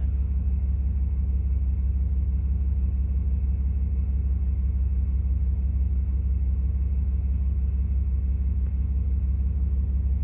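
Vehicle engine idling: a steady low rumble with no change in level.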